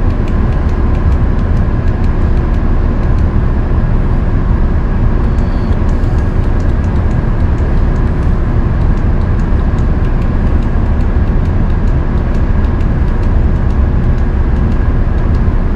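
Steady machinery hum of a powered-up CNC stone saw and its shop: an even low rumble with a few constant hum tones, unchanging throughout.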